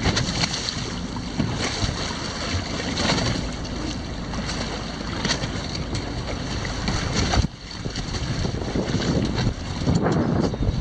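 Wind buffeting the microphone on a boat at sea, over water washing against the hull, with a sudden drop in level about two-thirds of the way through.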